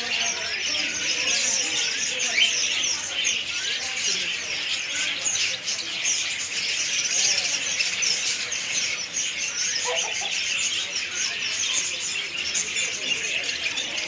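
Dense chorus of many caged small birds chirping and tweeting all at once, a continuous overlapping chatter of short high calls.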